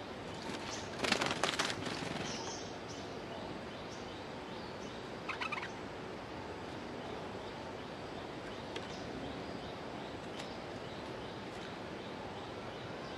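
Stripe-throated bulbuls calling around a caged decoy: a loud harsh chattering burst about a second in, then a short pitched call about five seconds in, with faint high chirps in the background.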